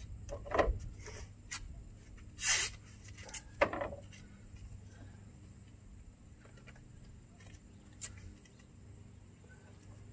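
Blue painter's tape being pulled off the roll and torn into strips: a few short rips, the longest and loudest about two and a half seconds in, with quieter handling of the tape between them.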